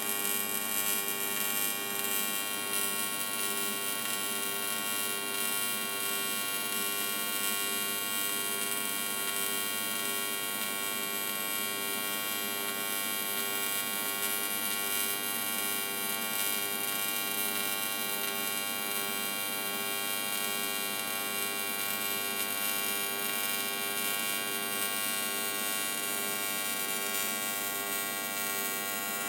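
TIG welding arc giving a steady electrical buzz, unchanging in level, as one continuous bead is laid around a boost-tube flange.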